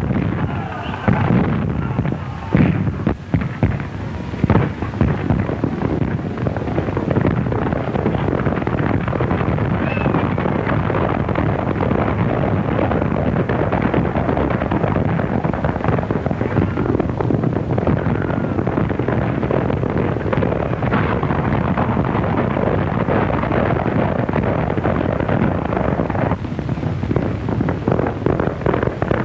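Dense crackling noise from a worn early sound-film soundtrack, with several sharp cracks, like gunshots, in the first few seconds of an action scene.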